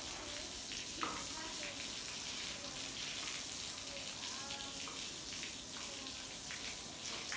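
Steady hiss of running or spraying water, with faint voices in the background and a single sharp knock about a second in.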